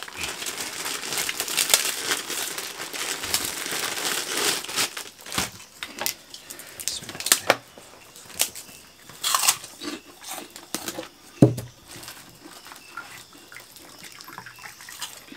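A plastic bag of kerupuk crackers crinkling and rustling for the first few seconds, then scattered crisp cracks as the crackers are broken apart by hand.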